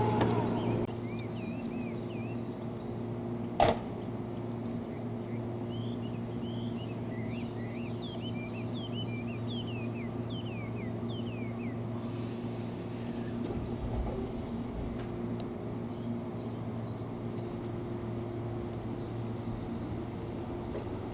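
Birds chirping in short rising and falling notes over a steady high insect drone and a low steady hum, with one sharp click about three and a half seconds in. The sound of the departing train dies away in the first second.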